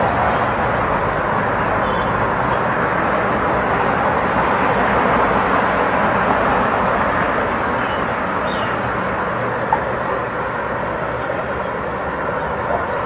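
Steady outdoor background noise: the even hum of distant city traffic spread below the hillside. There is a single small click about ten seconds in.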